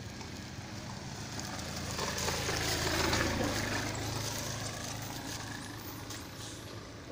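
A motor vehicle passing by: its engine hum and road noise grow louder to a peak about three seconds in, then fade away.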